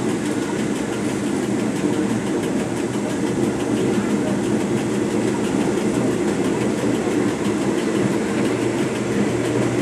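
A moving diesel train heard from the front cab: a steady low rumble of the engine mixed with the noise of the wheels running on the rails.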